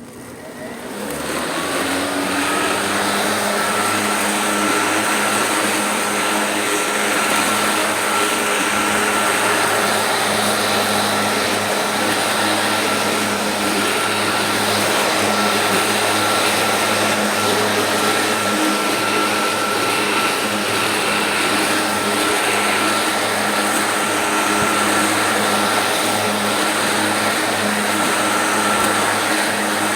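Sun Joe corded electric hover lawnmower's motor spinning up over about two seconds, then running steadily with a high whine.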